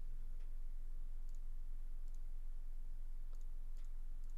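A handful of faint, scattered computer mouse and keyboard clicks over a steady low electrical hum.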